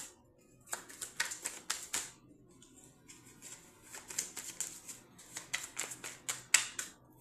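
A deck of cards being shuffled by hand: quick runs of crisp clicks and slaps as the cards strike each other, in two spells with a lull around two to four seconds in.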